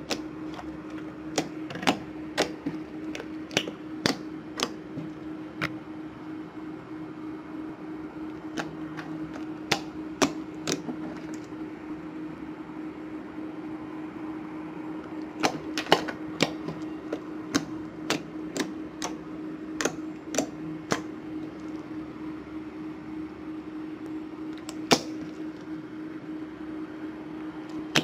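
Hands kneading, poking and stretching a soft, glossy glue slime, making irregular sharp clicks and pops in clusters. A steady hum runs underneath.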